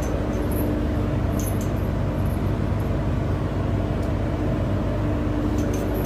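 Steady mechanical drone of machinery running in a cattle barn, with a low rumble under a constant hum and a few faint high clicks about a second and a half in and again near the end.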